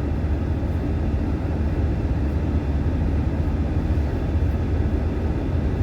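Steady low rumble of a moving car heard from inside the cabin: tyre and engine noise while driving.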